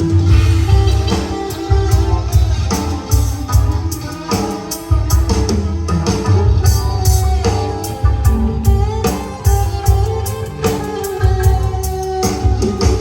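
Music: a guitar-led track with heavy bass and a steady drum beat, played loud.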